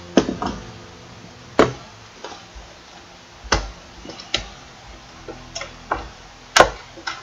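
Irregular sharp knocks and clicks of handling: a camera being set down on a table and hands moving the lens and straps in a metal carrying case. The loudest knock comes near the end.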